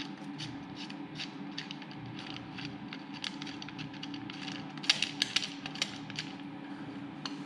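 Light metal clicks and taps as timing-chain parts are handled and slid into place on an Audi 3.2 VR6 engine, with a cluster of sharper clicks about five seconds in, over a faint steady hum.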